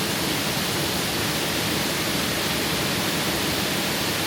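Waterfall pouring close by: a steady, unbroken rush of falling water.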